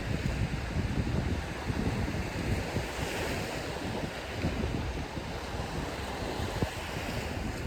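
Ocean surf breaking and washing ashore, with a swell about three seconds in, and wind buffeting the microphone.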